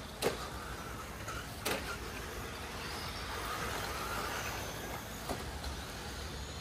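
Electric RC rally cars driving on a dirt track: faint motor whine rising and falling, with three sharp knocks, the loudest about a quarter second in.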